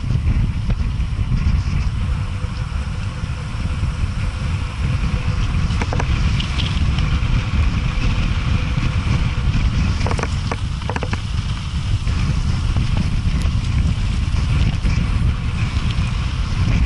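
Wind buffeting the microphone of a mountain bike's camera as the bike rolls along a gravel track, with tyre noise on the loose surface. A few short knocks and rattles from the bike come about six seconds in and again around ten to eleven seconds.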